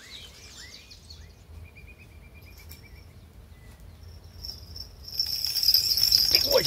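Birds chirp with short falling calls and give a brief rapid trill. About five seconds in, an insect starts a loud, steady, high-pitched buzz.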